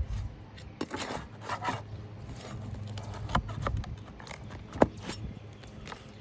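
Scraping and prying at asphalt roof shingles as nails are worked out and sealed rows are lifted, with irregular scrapes and several sharp clicks, the sharpest near the end.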